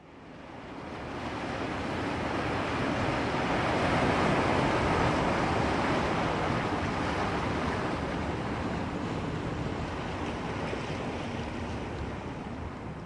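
A rushing noise that swells in over the first few seconds, then slowly fades toward the end.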